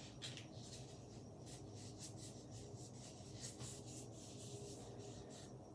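Faint rustling and rubbing of a sheet of paper being folded and creased by hand, with soft scattered crinkles throughout.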